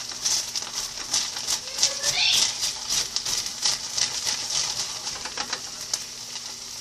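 Food sizzling in a hot frying pan, with a steady hiss and many quick crackles and pops.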